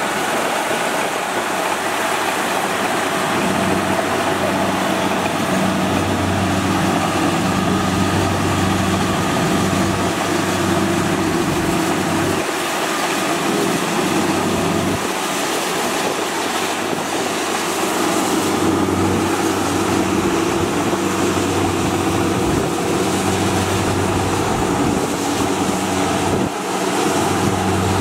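Diesel engine of a Kubota crawler rice combine harvester running steadily as the machine travels across the field.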